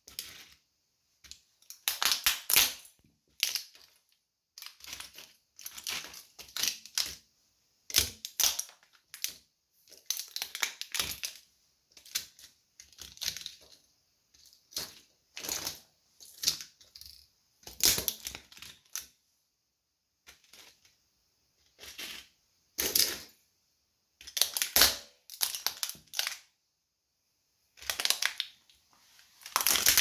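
Small plastic model train cars cracking and crunching under a sneaker sole, pressed down again and again in short bursts of snapping plastic with brief pauses between.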